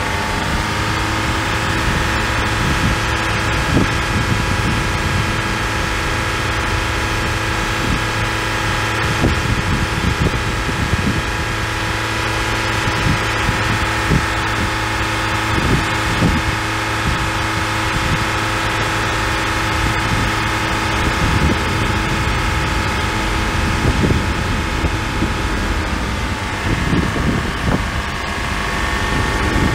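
An engine idling steadily, its pitch dipping briefly and recovering near the end, with wind buffeting the microphone.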